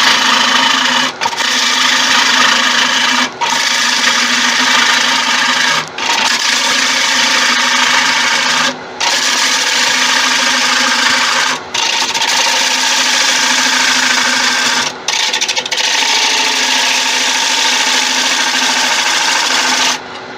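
A turning tool cutting into the inside of a wooden bowl spinning on a lathe, a loud rough shearing noise over the lathe's motor hum. The cut breaks off briefly about every two to three seconds as the tool is drawn back for the next pass, and stops near the end, leaving only the lathe running.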